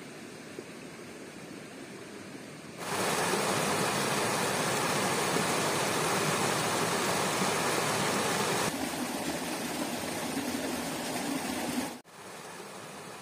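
Shallow stream rushing and splashing over rocks, starting suddenly about three seconds in and cutting off abruptly near the end. Before it, a quieter steady background hiss.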